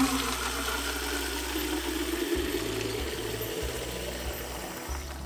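Water from an outdoor garden tap running into a plastic watering can, a steady rush of water that cuts off near the end.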